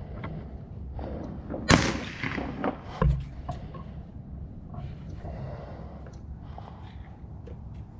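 FX Impact M3 PCP air rifle firing a single shot: one sharp crack about two seconds in, followed about a second later by a short low thump.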